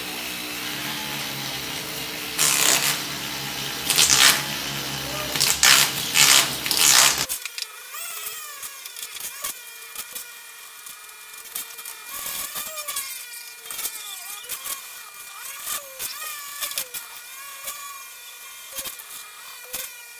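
Flex-shaft rotary tool running with a small abrasive point, grinding against a silver spoon in short, louder bursts as it touches the metal. About seven seconds in the low hum cuts off suddenly, and a fainter, thinner whine with wavering tones follows.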